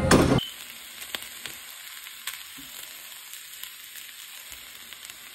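Loud music cuts off about half a second in. After that, chicken, potatoes and vegetables sizzle steadily in a frying pan as they are reheated, with a utensil clicking against the pan now and then as it is stirred.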